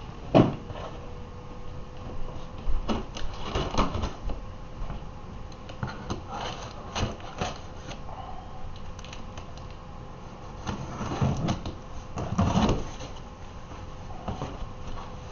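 A cardboard shipping box being opened by hand: a knife cutting through the packing tape and the flaps being pulled open, with irregular scraping, rustling and knocks. A sharp knock comes about half a second in.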